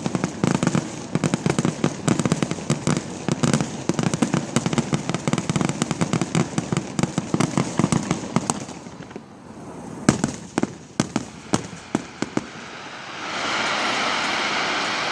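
Fireworks going off: a rapid, dense crackle of many small bangs that thins out after about nine seconds to a few scattered louder bangs. Near the end a steady rushing noise takes over.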